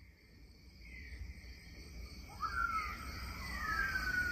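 Sci-fi demo soundtrack played through a home cinema system with four subwoofers: a high, insect-like hum with eerie gliding tones joining about halfway. A deep rumble underneath swells steadily louder.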